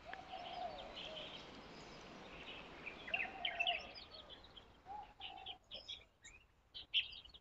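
Faint birdsong: scattered high chirps, with a lower rising-and-falling call heard about three times, over a light background hiss.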